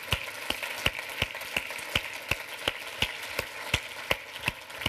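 Audience applauding, with one person's loud, evenly paced hand claps close to the microphone, about three a second.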